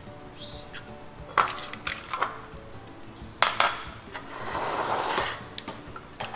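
Eggs cracked against the rim of a glass mixing bowl: a few sharp taps and clinks, then a noisy patch lasting about a second, near the end. Soft background music plays under it.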